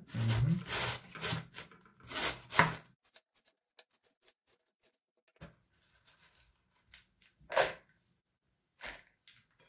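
A double-bladed cabbage shredding knife rasping across a half head of white cabbage on a wooden board, shaving it into fine strips. A quick run of strokes fills the first three seconds; after that only a few scattered rasps and clicks.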